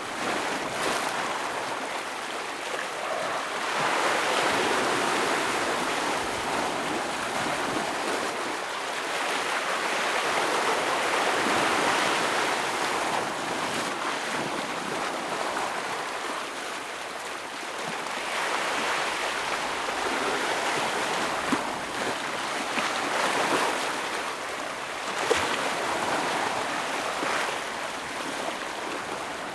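Ocean waves breaking and washing over shore rocks, a continuous surf hiss that swells and falls every few seconds, with a few sharper splashes near the end.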